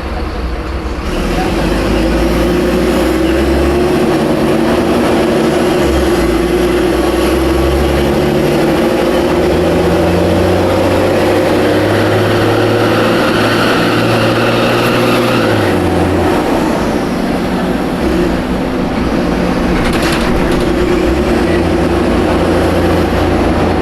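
Mercedes-Benz O500M city bus's diesel engine running under way, its note climbing and dropping in steps as the ZF Ecomat automatic gearbox changes gear. It is loud and coarse through a holed exhaust, and the bus has a slipping belt.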